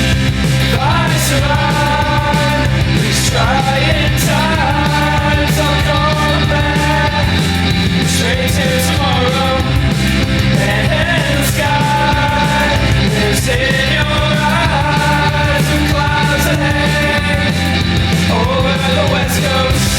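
Loud, full-band rock song in a punk style, with drums beating steadily under a sung vocal line.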